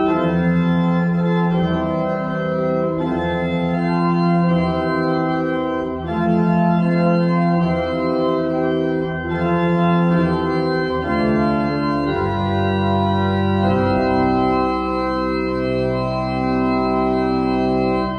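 Church pipe organ playing slow, sustained chords that change every second or two.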